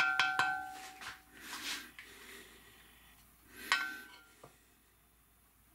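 Wooden spatula scraping and knocking inside a cast-iron roaster while spreading oil to season it. A quick run of strokes at the start makes the pot ring, then come a couple of softer scrapes and one clear ringing knock about four seconds in.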